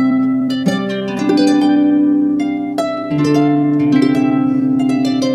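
Background music of a plucked harp playing a slow melody over held, ringing chords.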